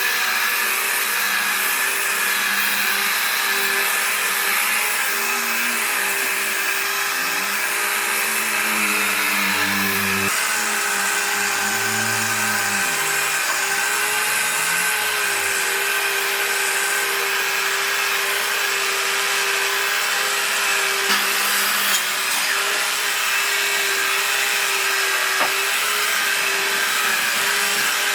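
Electric power tool running steadily on wood: a constant motor hum over dense, even noise, with a lower tone that wavers for a while in the middle.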